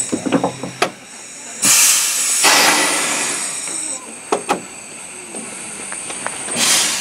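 15-inch gauge steam locomotive River Esk hissing steam in loud bursts, one starting suddenly about one and a half seconds in and fading over two seconds, another near the end, with a few sharp metallic clicks in between.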